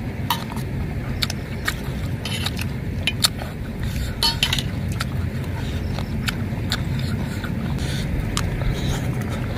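Eating soup from metal bowls: spoons clinking and scraping against the bowls, with slurping, as scattered short clicks and a small cluster about four seconds in. A steady low rumble runs underneath.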